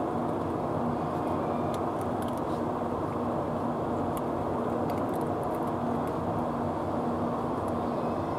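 Steady low rumble with a constant hum, unchanging throughout, from unseen machinery or traffic. Over it, faint scattered small clicks of cats crunching dry food.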